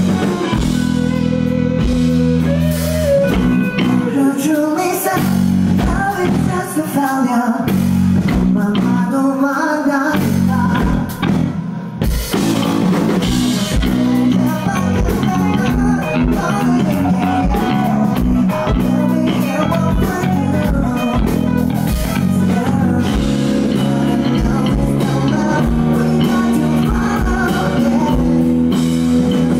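Live rock band playing, with electric guitar, bass and drums under a singer on a microphone. The bass and drums thin out for several seconds about a third of the way in, then come back in together on a hit.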